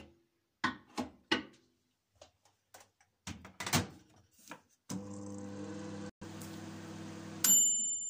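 Mechanical-dial microwave oven: clicks and knocks as the door is shut and the timer dial is turned, then a steady hum from about five seconds in as it runs at full power. Near the end its bell dings once and rings on, signalling that the cooking time is up.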